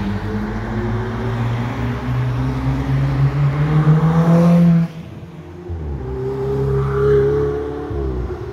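Ferrari sports car engines accelerating past, the engine note climbing steadily for nearly five seconds and then cutting off abruptly. A second car's engine follows, rising and then falling away near the end.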